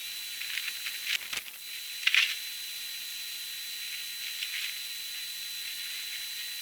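Outdoor storm ambience sped up thirty-fold in a time-lapse, which makes it sound strange: a steady hiss with a thin high steady tone, broken by short bursts about a second in and again about two seconds in, the second the loudest.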